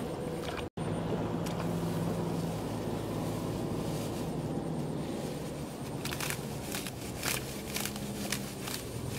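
Sickle cutting through rice stalks, a series of crisp crunching snips from about six seconds in, over a steady low hum.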